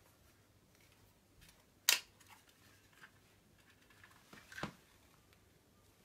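A few sharp clicks and knocks of objects being handled, over faint room tone. The loudest comes about two seconds in and another about four and a half seconds in.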